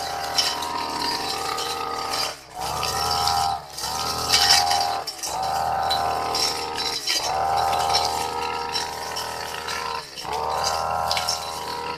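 Brush cutter with a metal blade cutting long grass, its engine revving in bursts. The throttle drops briefly about every two to three seconds, then the engine climbs back up and holds while the blade cuts.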